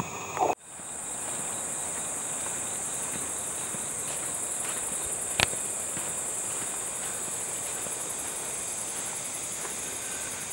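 Steady, high-pitched insect trill with a fine, rapid pulsing, broken by a single sharp click about five seconds in. A short louder sound cuts off in the first half-second.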